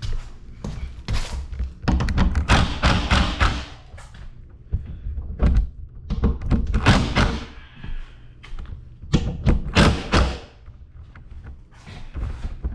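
Makita impact driver driving screws into wood framing, in three bursts of rapid hammering impacts, each lasting one to two seconds, with knocks and thuds between them.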